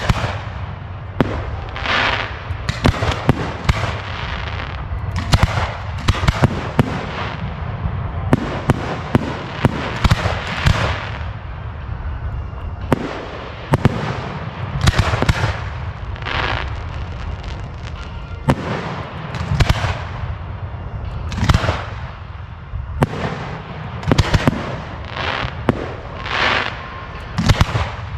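Fireworks display in full swing: many sharp bangs at irregular intervals, often about a second apart, with a longer rushing burst every few seconds.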